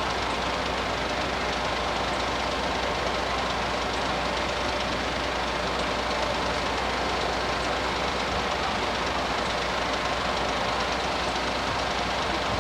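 Two-car diesel railcar passing over a level crossing, a steady running noise that holds level throughout.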